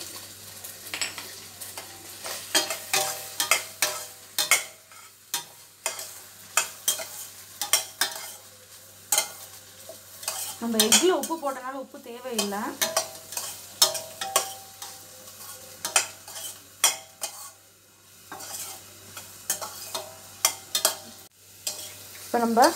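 Spatula stirring and scraping stir-fried vegetables in a stainless steel pot, with many quick clicks of the spatula against the pot and a light frying sizzle.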